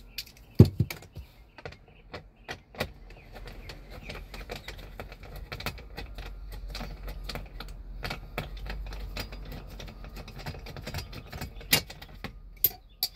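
Plastic lower dash panel of a 2004 Toyota 4Runner being worked loose by hand: rapid, irregular clicking and light knocks, with a sharp knock about half a second in and a few louder clicks near the end.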